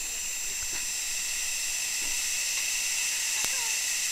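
Water spraying through the gaps of a leaking metal door in a dam's tower and running down its face, a steady hiss. A couple of faint clicks sound over it.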